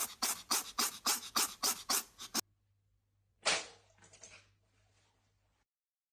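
A rapid run of short, sharp bursts, about four a second, for the first two seconds or so. Then, after a brief pause, a single sharp cat sneeze with a few faint snuffles after it.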